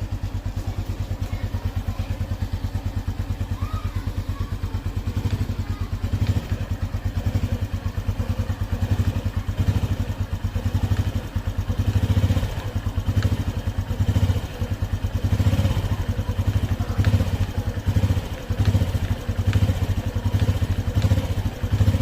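Honda Biz 125 ES single-cylinder four-stroke engine idling warm, a fast, even pulse that grows more uneven in loudness after a few seconds, with a few faint ticks. The owner is demonstrating an engine noise he finds unpleasant on the new bike, though he says it shows mainly when the engine is cold.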